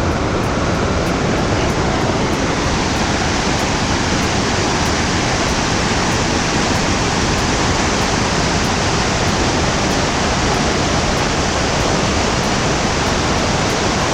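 Steady rushing of fast water, a mountain stream or waterfall.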